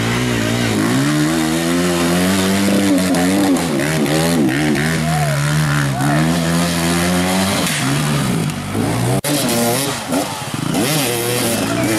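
Dirt bike engines revving hard, the pitch holding high then rising and falling, as the rear wheel spins in deep mud. The sound breaks off sharply for a moment about nine seconds in, then the revving picks up again.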